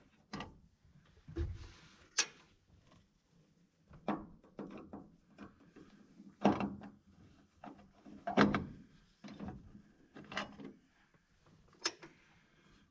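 Irregular clicks, taps and knocks of hand-tool work at a car dash: a screwdriver on the small flathead screws and the metal instrument panel being handled, with heavier knocks about six and a half and eight and a half seconds in.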